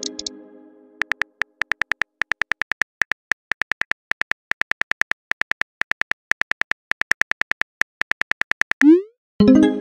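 Simulated phone-keyboard typing clicks from a texting-story app, a quick even run of about six taps a second as a text message is typed out. The tail of a notification chime fades over the first second. Near the end a short rising swoosh marks the message being sent, followed by the start of another chime.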